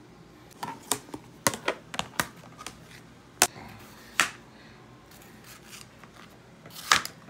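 Kitchen knife cutting through a red bell pepper, the blade knocking down on the cutting board in a string of irregular sharp taps.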